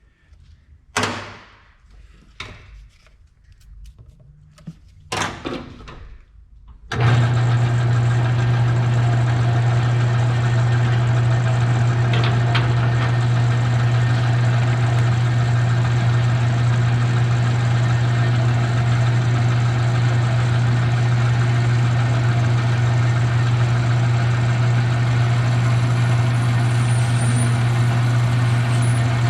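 Two short clunks, then about seven seconds in a metal lathe's motor switches on and runs with a steady, loud hum.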